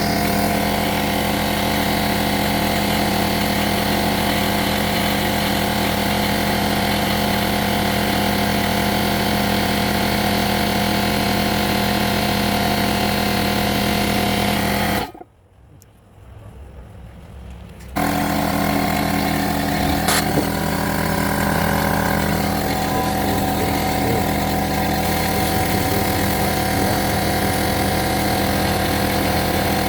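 Air compressor motor and pump running steadily with an even hum. It stops abruptly about halfway through, and after a few seconds starts up again and runs on.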